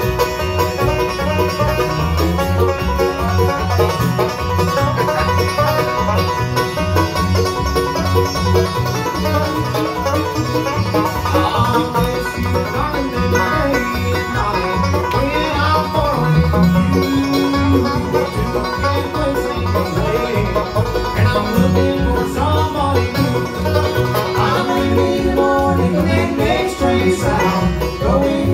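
Bluegrass band playing live: banjo, upright bass keeping a steady beat, mandolin and acoustic guitar.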